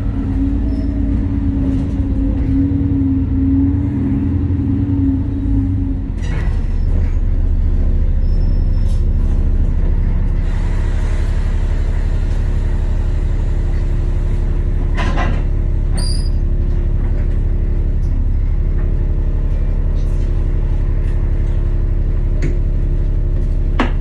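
Double-decker bus heard from inside on the upper deck, its drive humming and shifting in pitch as it slows, then a steady low idle hum while it stands at a stop. A hiss of air sets in about ten seconds in, and there are a few sharp knocks, one about six seconds in and one about fifteen seconds in.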